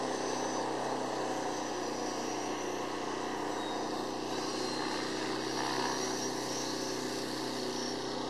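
Dynam Me-109 electric RC warbird flying at a distance: its brushless motor and propeller give a steady drone, with a faint high whine that slides in pitch around the middle.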